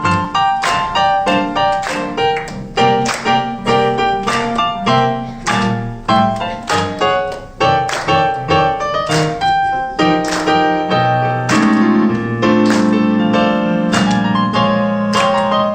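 Keyboard music with piano-like notes struck in a quick, lively run, settling into longer held chords about ten seconds in.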